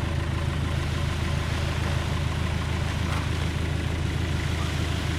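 Engine of the farm machine powering a winch, running steadily at idle with a low, even hum.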